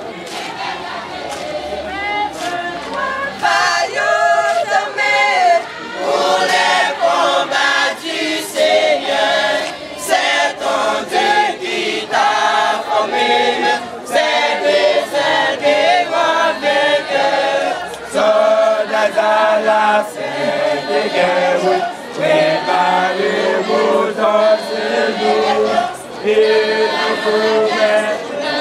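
A choir of men and women singing a gospel hymn together, with sharp regular beats keeping time under the voices.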